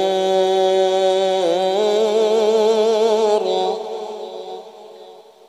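A male Quran reciter's voice in melodic, chanted recitation, drawing out the word "az-zur" in one long ornamented note with small turns of pitch. The note breaks off about three and a half seconds in and fades away.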